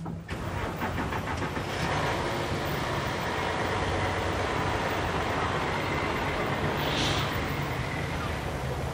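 An SUV driving along a street toward the listener and passing close by: steady engine and tyre noise, with a brief rise in tyre hiss about seven seconds in as it goes past.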